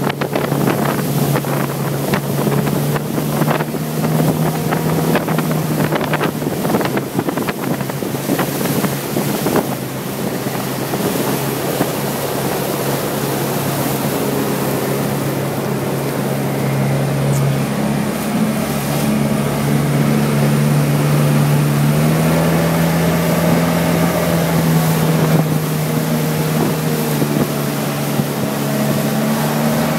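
Motorboat engines running at speed, a steady drone whose pitch dips about twelve seconds in and rises a little past twenty seconds, with rushing water and wind buffeting the microphone.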